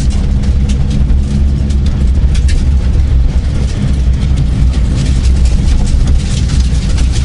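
Vauxhall Astra GSi rally car's engine running at steady revs, heard from inside the stripped cabin, with scattered rattles and clicks over the drone.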